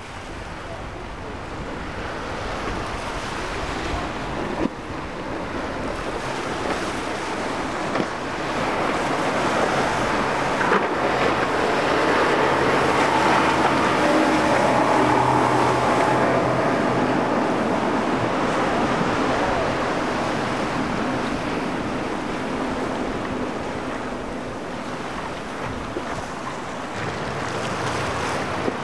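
Surf and wind on the microphone, with the steady drone of a center-console boat's engines as it runs through choppy inlet waves; the engine sound swells to its loudest about halfway through as a boat passes close, then eases off. A few short knocks stand out briefly.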